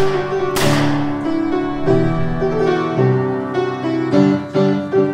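Background music on a keyboard instrument: held notes changing every half second or so. A short crash-like burst of noise sounds right at the start, and a stronger one just under a second in.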